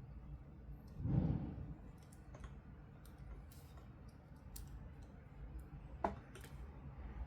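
Toys and their packaging being handled during unboxing, giving scattered small clicks, a soft thump about a second in, and a sharper click about six seconds in.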